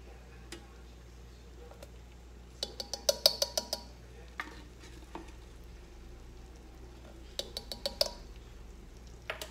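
A measuring spoon tapped rapidly against the rim of a saucepan to knock flour into melted butter for a roux, in two quick runs of ringing clinks, one about three seconds in and another near the end.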